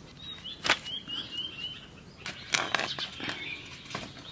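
Scraping and cutting strokes of a large river fish being worked against an upright curved boti blade, in short separate strokes, with a cluster of them in the second half. A bird gives a quick series of short chirps about a second in.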